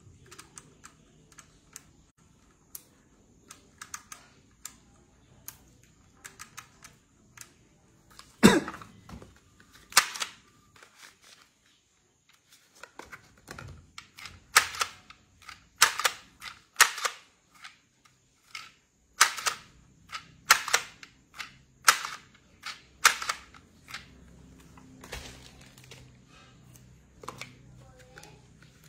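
Handheld price-labeling gun clacking as its trigger is squeezed: faint clicks at first, then a series of sharp snaps about a second apart through the middle.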